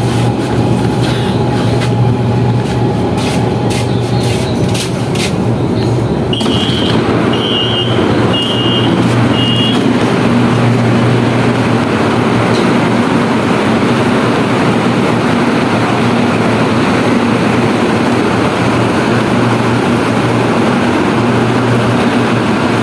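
LRT train carriage heard from inside: steady running rumble and hum, with a few clicks early on. A quick series of short high beeps in pairs comes about six seconds in and lasts about four seconds.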